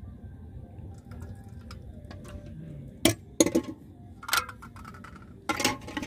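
Steel ladle clinking against a steel plate and cooking pot: a few sharp metallic clinks about three seconds in, one ringing clink a second later, and a cluster of clinks near the end.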